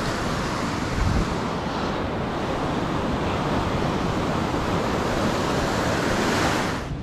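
Ocean surf breaking and washing up a beach in a steady rush, with wind rumbling on the microphone, in a brief gust about a second in.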